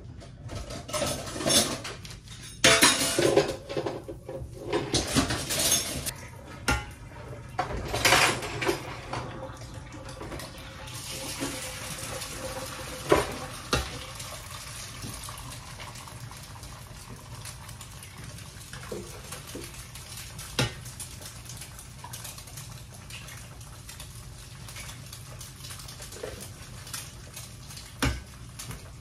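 Dishes and cutlery clattering, loud and irregular, for about the first ten seconds; then a steady hiss of water running into a sink, with a few sharp knocks of dishes.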